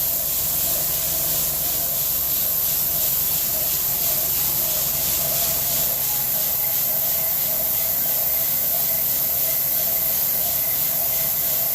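Shelled corn pouring steadily from a grain wagon into the dump-pit grate, a continuous hiss, over a steady machine hum.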